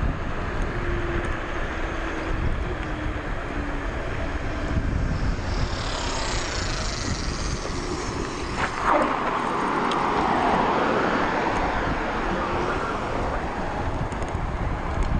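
Riding an eMOVE Roadrunner electric bike: wind rushing over the microphone, with tyre and motor noise underneath and a sharp click about nine seconds in.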